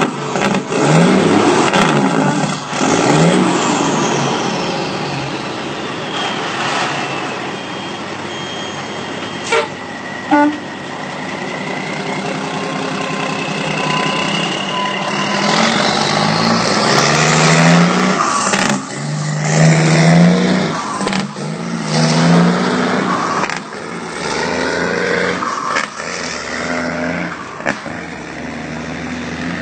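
Diesel dump truck pulling away and working up through the gears: the engine revs climb, then fall back at each gearchange, again and again. Two short sharp knocks come about ten seconds in.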